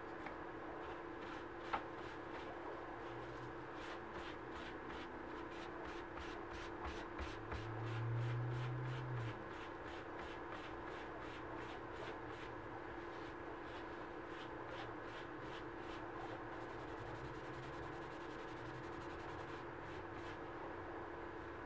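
Rhythmic scrubbing of a dye dauber over a small leather key chain on paper towel, about two to three strokes a second, with one sharp click about two seconds in. A steady hum runs underneath.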